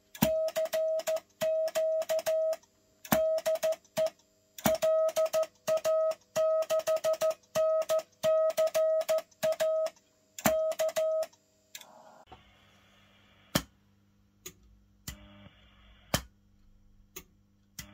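Morse code sidetone from an automatic Rx/Tx switch: a steady tone of about 650 Hz keyed on and off in dots and dashes as telegraphy is sent, with a sharp click at each key-down and key-up. The keying stops about eleven seconds in, and a few separate clicks follow over a low hum.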